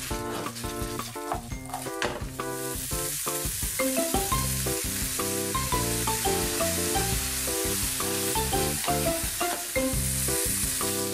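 Edamame pods sizzling as they fry in butter and soy sauce in a frying pan, tossed with chopsticks. The sizzle grows louder and hissier about two seconds in and then stays steady.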